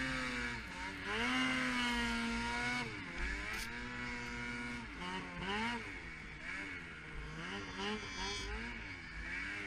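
Snowmobile engine running under throttle while riding through deep powder, its pitch rising and falling as the rider works the throttle: held fairly steady for a moment early on, then quick swells up and down in the second half.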